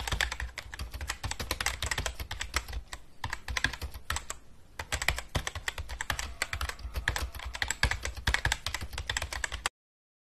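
Computer keyboard typing sound effect: rapid, irregular key clicks laid under text being typed out on screen. It cuts off suddenly near the end.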